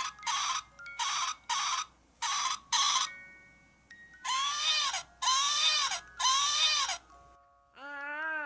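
A baby doll's built-in voice sounding as its belly is pressed: three pairs of short breathy sounds, then three longer baby-like calls that each rise and fall in pitch. A soft sung or hummed tune starts near the end.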